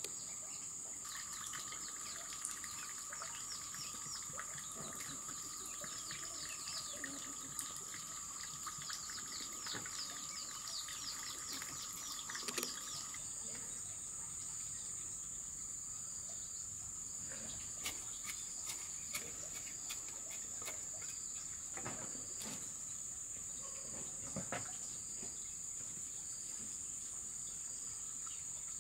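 Steady high-pitched drone of crickets or other insects, with rapid repeated chirping calls over it for the first half that stop about halfway through. A few brief soft clicks and knocks come from hands and a trowel working the soil of a wooden planter box.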